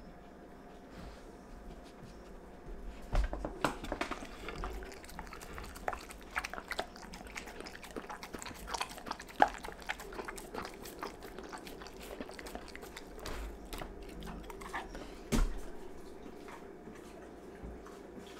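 A dog licking and chewing raw ground food off a wooden cutting board: a run of wet smacks and sharp mouth clicks, starting a few seconds in, with the loudest clicks about halfway through and shortly before the end.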